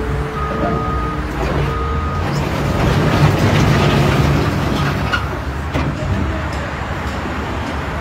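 Caterpillar 962K wheel loader's Cat C7.1 diesel engine running as the machine drives across dirt, getting louder and rougher for a second or two near the middle.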